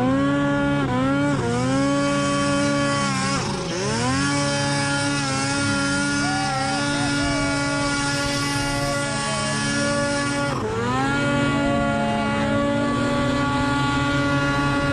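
Supercharged Arctic Cat 800 C-TEC2 two-stroke twin snowmobile engine revving under load, its pitch rising and falling with the throttle. It drops sharply about three and a half seconds in and again near ten and a half seconds, then climbs back, with a hiss over it between the two drops.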